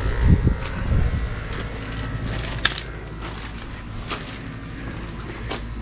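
Scattered clicks and light knocks from handling the RV's utility hookups: electric cord and water connections being undone. A few low thumps come in the first second, and one sharper click comes near the middle.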